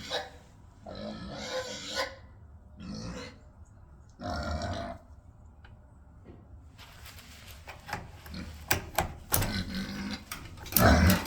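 Pigs grunting and screaming, with several separate pitched calls in the first five seconds, then a run of sharper, noisier squeals and clatter that grows louder near the end. The pigs are calling out as someone comes up to the pen, expecting food.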